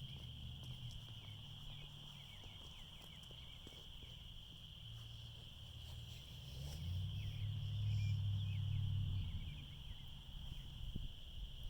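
Night insect chorus, crickets trilling in a steady high-pitched drone. A low rumble swells and fades about two-thirds of the way through.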